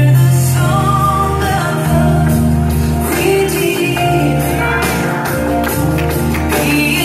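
Worship song playing: a voice singing over sustained chords and a steady bass.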